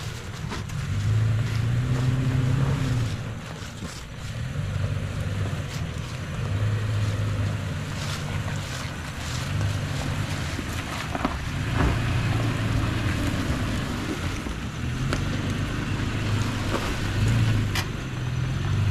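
Off-road vehicle's engine running at low revs while crawling over rocky ground, its note swelling and easing every couple of seconds with the throttle. A few sharp knocks stand out, two close together about two-thirds of the way in and one near the end.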